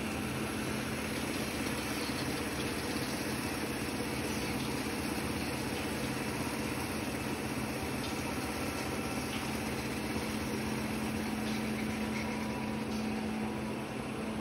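Suga HSG-PB-4C-1100 automatic folder gluer running, a steady machine hum and whir with a constant low tone.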